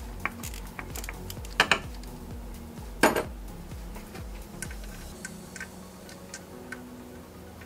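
Metal hand tools clicking and clinking against the engine's water pump bolts as they are loosened. There are scattered light ticks and two louder clanks, about one and a half and three seconds in.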